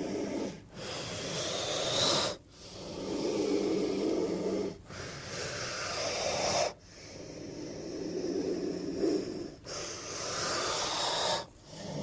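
Designed creature sound effects for Titanoboa, a giant prehistoric snake: a run of separate hissing, breath-like calls with a low rumble under them, each about two seconds long, divided by short silent gaps.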